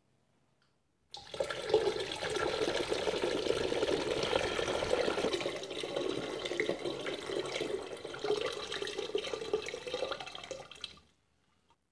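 Coconut water pouring steadily into a large plastic fermenter bottle. It starts suddenly about a second in and stops near the end.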